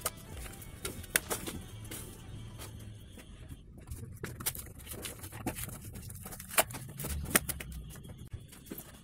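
Cardboard and thin wooden strips of a handmade miniature truck cab cracking and snapping as it is pulled apart by hand, in sharp separate cracks every second or so. Music plays underneath.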